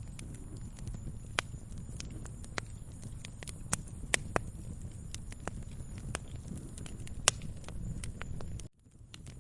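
Wood fire in a fireplace crackling: a steady low rumble of flames with sharp, irregular pops and snaps, a few of them much louder. The sound cuts out for a moment near the end, then resumes.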